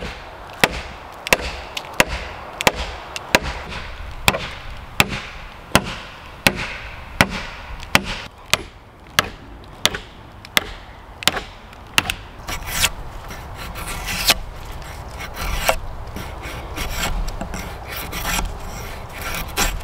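A wooden peg being driven into a cedar pole with a hatchet: sharp wood-on-wood knocks at an even pace of about one and a half a second. About twelve seconds in they give way to a knife scraping bark off a cedar pole in quick rasping strokes.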